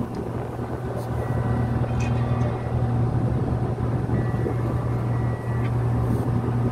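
Ship's machinery running with a steady low hum while the vessel's mooring lines are heaved in alongside the berth, with a few faint clicks about one and two seconds in.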